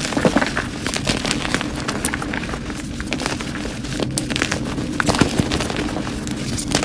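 Blocks of gym chalk being squeezed and crumbled between the hands: continuous dense crunching with many sharp crackling snaps as the chalk breaks into powder.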